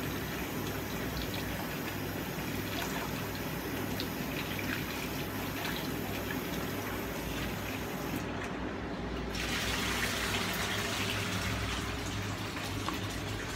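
Oxtail stew simmering in a lidded pot on a low gas flame: a steady liquid bubbling and hiss, a little louder for a couple of seconds about ten seconds in.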